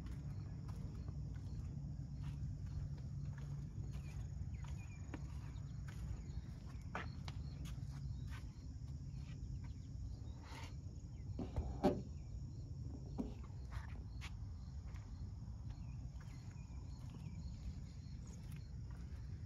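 Quiet outdoor background: a steady low rumble with faint, evenly repeating insect chirps, scattered soft clicks, and one short knock about twelve seconds in.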